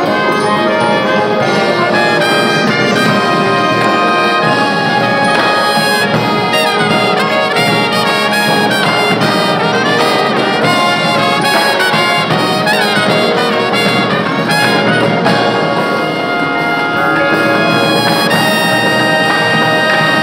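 Marching band brass section playing loud, full chords: trumpets, trombones and low brass together, with some notes bending in pitch in the middle.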